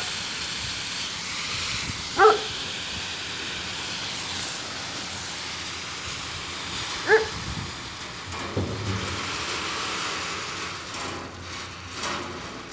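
Steady rushing noise of pumpkin seeds pouring from an Aktaş pumpkin-seed harvester's unloading chute into a trailer bed, with the machine running. A dog barks once about two seconds in and again about seven seconds in.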